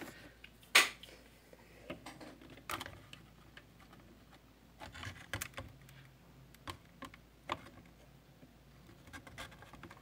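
Light clicks and knocks of a plastic scale model car being handled, turned over and set down on its display base, the sharpest knock just under a second in.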